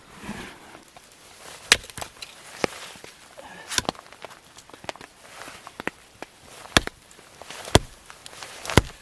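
Firewood being gathered and broken up: a series of sharp woody cracks and knocks at uneven intervals, five of them loud, with quieter rustling and clicks between.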